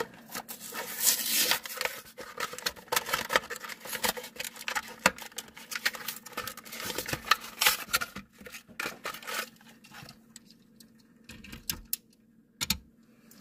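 A plastic blister pack on a cardboard backing card crackling and tearing as a Majorette toy car package is opened by hand. The dense crackling dies down after about ten seconds, and a single click follows near the end.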